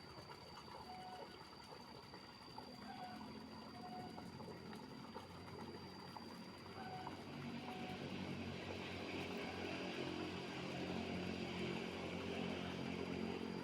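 A motor running steadily, rising in level through the second half, with a few short chirps early on.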